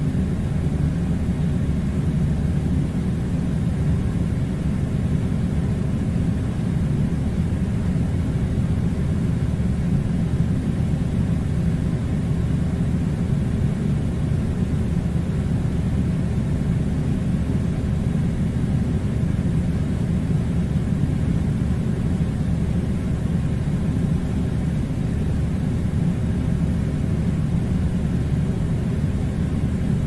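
Steady low rumble of air conditioning blowing, even in level and pitch with a faint hiss above it.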